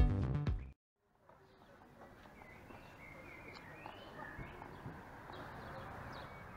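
Electronic background music that cuts off suddenly under a second in. After a brief silence comes faint outdoor street ambience, with small birds chirping now and then.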